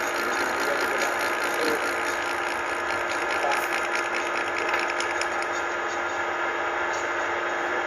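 Milling machine running steadily with a fixed-pitch hum, and a light, fast rattle over the middle few seconds.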